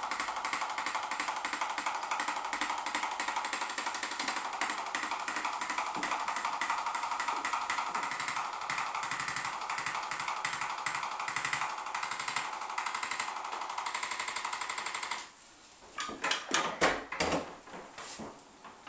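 Handheld chiropractic adjusting instrument tapping rapidly and steadily as it is worked down a child's spine, cutting off suddenly about fifteen seconds in, followed by a few soft knocks.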